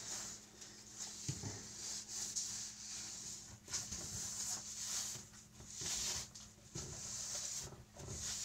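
A cloth rubbing across a smooth stovetop in repeated wiping strokes, about one a second, cleaning up spilled muffin batter, over a steady low hum.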